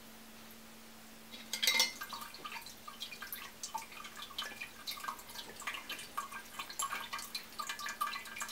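Brief knock from handling the ceramic lid, then water from a ceramic cat drinking fountain splashing and dripping steadily as it falls back through the lid into the bowl. The pre-filter is out, so the falling water hits the surface hard and is heard; with the pre-filter in place this noise is gone.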